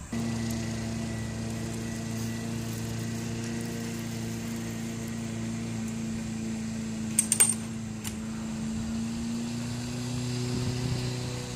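A motor running with a steady, even-pitched hum. A few sharp clicks come about seven seconds in.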